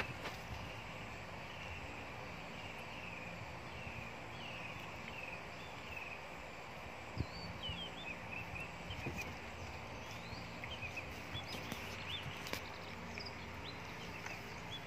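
Steady background hiss with many faint short high chirps scattered through it and a few soft clicks.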